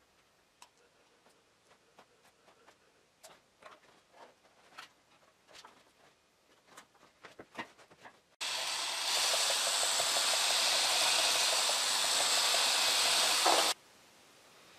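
Light clicks and taps of small wooden spacer strips being set between wooden bricks. Then a loud, steady hiss starts suddenly about eight seconds in and cuts off just as suddenly some five seconds later.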